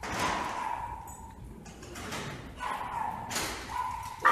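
Dogs barking in several short bursts.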